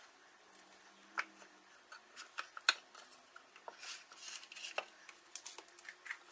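Faint, scattered clicks and taps of raw pork chops being laid and pushed into place in a Power AirFryer XL's nonstick metal basket.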